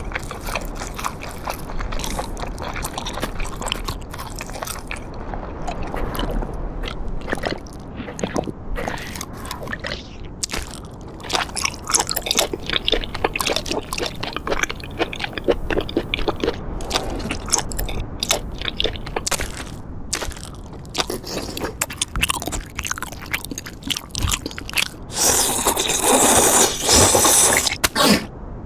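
Cartoon foley of a seal eating: quick, dense crunching and chewing with wet biting sounds. Near the end there is a louder slurp of about three seconds as a strand of seaweed is sucked in.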